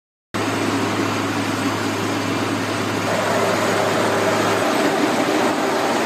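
Trencher running: a loud, steady mechanical din of engine and machinery that starts abruptly, with a low hum under it that drops away about four and a half seconds in.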